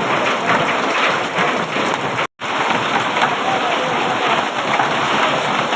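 Heavy rain falling steadily on hard surfaces, with a split-second cut to silence a little over two seconds in.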